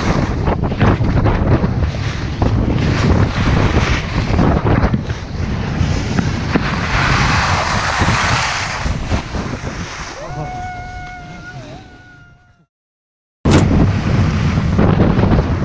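Wind buffeting the microphone of a camera moving fast down a ski slope, a loud, even rush. About ten seconds in a steady pitched tone joins for about two seconds. The sound then fades out, there is about a second of silence, and the wind rush cuts back in abruptly with a click: an edit between two clips.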